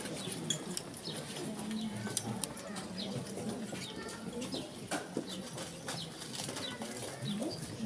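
Murmur of a street crowd with small birds chirping throughout and scattered sharp clicks.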